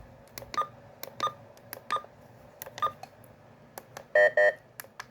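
A run of sharp button clicks, some with a short faint key beep, followed about four seconds in by two loud, short electronic beeps in quick succession.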